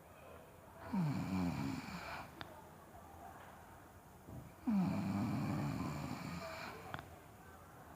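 Loud snoring from a sleeping person: two long snores about four seconds apart, each falling in pitch, with a short faint click after each.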